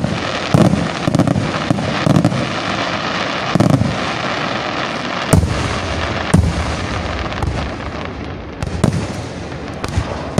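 Aerial firework shells bursting in a professional display: about a dozen sharp bangs at irregular intervals, with a steady din between them.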